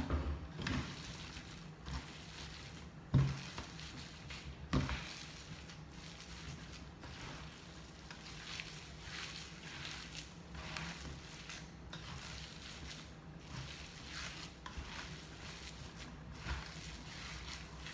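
Hands kneading and mixing minced beef with suet and spices for sucuk: soft, repeated squishing strokes, with two sharper knocks about three and five seconds in.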